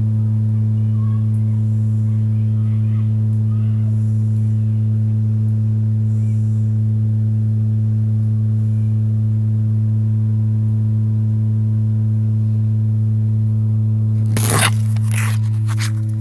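A loud, steady low hum with a row of overtones above it. Near the end there are a few sharp knocks as the recording phone is handled and moved.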